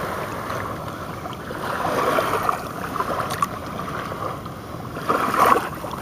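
Shallow river water lapping and washing at the shoreline, with a louder wash a little after five seconds in.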